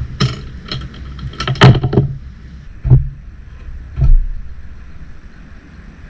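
Mini stepper pedals clunking in a quick rhythm, about three strokes a second, stopping about two seconds in. Two separate thumps follow a second apart.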